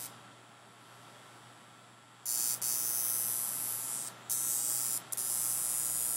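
Violet wand (electric "neon wand") with a faint hum, then, from about two seconds in, a loud steady hiss of its glowing glass electrode sparking against the body through a shirt. The hiss breaks off briefly three times as the electrode leaves and meets the skin.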